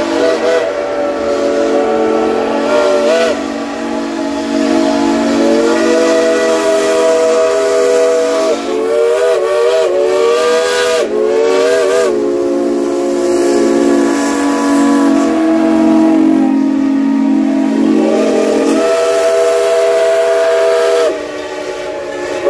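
Steam whistles of Shay geared steam locomotives blowing long, loud, overlapping blasts, several chime tones at once. The higher notes start and stop several times with a wavering, bending pitch as the valves are worked, while a lower note holds and cuts off about nineteen seconds in.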